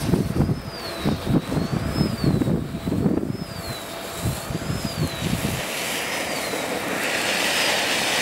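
A small ground fountain firework spraying sparks with a steady hiss that builds up about six to seven seconds in. Before it catches, wind buffets the microphone in low rumbling gusts.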